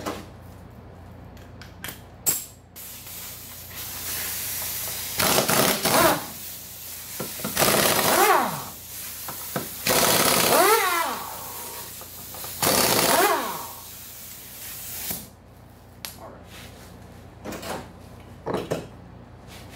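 Air impact wrench hammering the nuts off an ATV's front wheel in four bursts of about a second each, each winding down with a gliding whine as it stops. A few light knocks follow near the end.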